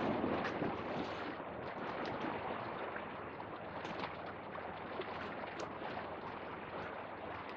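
Small ocean waves washing and splashing against shoreline rocks, a steady wash that swells a little louder in the first second.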